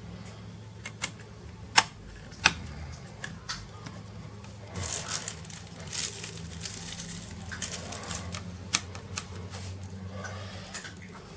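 Small parts being handled inside an open laptop during an M.2 SSD swap: a few sharp plastic-and-metal clicks, with a stretch of scraping, rustling handling noise about five seconds in. A faint steady low hum runs underneath.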